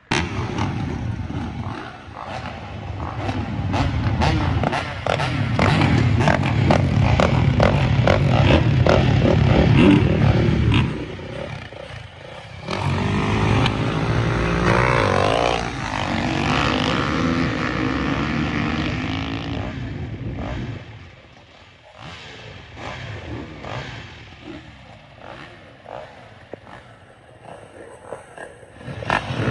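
Motocross bike engines running and revving, the pitch rising and falling in the middle, then fading much quieter about twenty seconds in.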